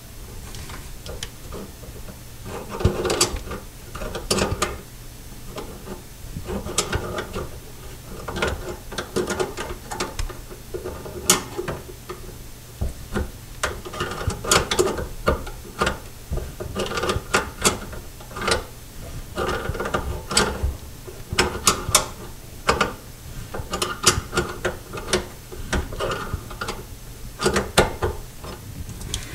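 Tongue-and-groove pliers tightening the mounting nut of a new pop-up drain body under a bathroom sink. Metal clicks and scrapes come in short repeated bursts, about one every second or two, as the jaws grip and turn the nut.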